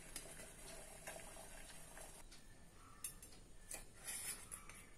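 Faint clicks and light metallic knocks from a stainless-steel idli plate stand being lifted out of the steamer and set down, a few of them in the second half, over an otherwise quiet room.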